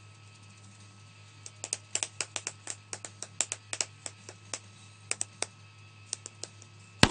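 A can of Red Seal Natural long cut dip being packed: the lid tapped against a finger with quick flicks of the wrist, giving an irregular run of sharp taps that starts about a second and a half in, with the loudest tap near the end. Packing settles the tobacco to one side of the can before it is opened.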